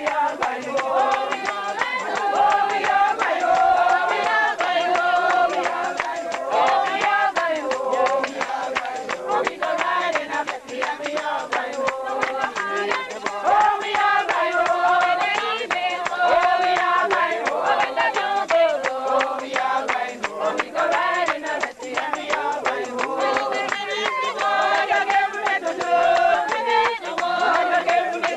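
A congregation singing a hymn together in unison, with hand clapping throughout.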